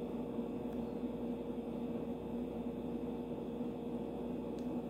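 Quiet room tone: a steady low hum over a faint hiss, with no distinct event.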